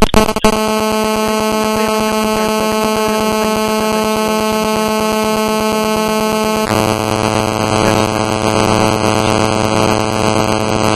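Harsh, steady electronic buzz of many tones at once on a telephone line, pulsing rapidly, with its tone shifting about two-thirds of the way through.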